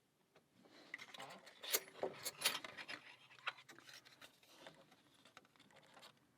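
Lock pick and tension tool working inside a postal lock: irregular small metallic clicks and scraping, busiest in the first half.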